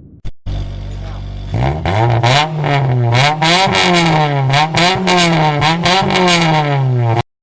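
Engine sound effect: after a click, an engine idles with a steady low note, then is revved up and down over and over, its pitch rising and falling, before cutting off abruptly near the end.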